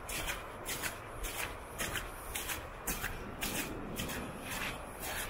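Footsteps through wet snow and slush, about two steps a second.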